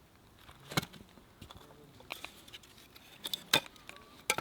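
A handful of separate sharp clicks and knocks, irregularly spaced, with a small cluster near the end: small handling sounds.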